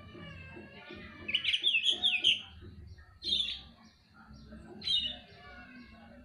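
Oriental magpie-robin singing: a rapid run of sharp whistled notes about a second in, then two shorter phrases.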